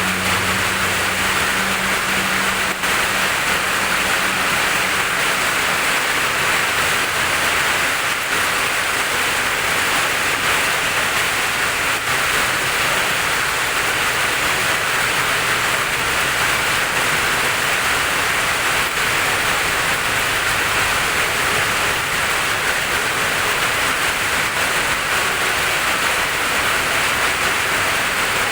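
Steady heavy rain falling, an even rushing hiss. A low hum at the start fades out within the first few seconds.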